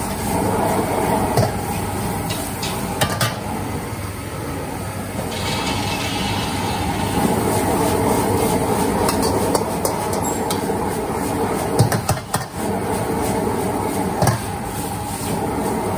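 Metal ladle and spatula scraping and clanking against a wok as stir-fried rice noodles are tossed, over the steady noise of a gas wok burner. The clanks come at irregular moments, several together a little past the middle.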